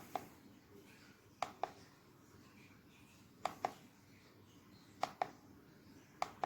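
Pairs of sharp clicks, five pairs in all, each a quick double click, repeating about every one and a half to two seconds over a faint background hiss.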